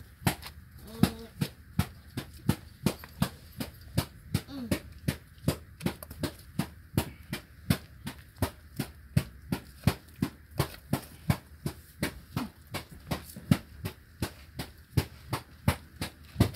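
Steady, evenly paced knocking, about three sharp knocks a second, like something being hammered or pounded.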